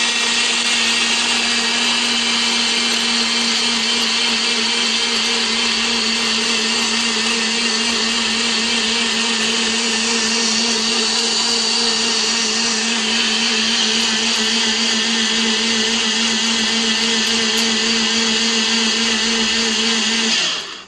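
NutriBullet personal blender running steadily as it blends frozen orange segments, ice and water into a shake. Its motor hum holds one pitch, then cuts off just before the end.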